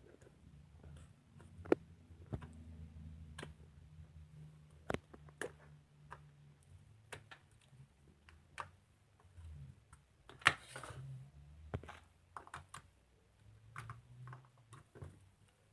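Slime being pressed and poked by hand, giving irregular small sticky clicks and pops, with a louder crackly squish about ten seconds in.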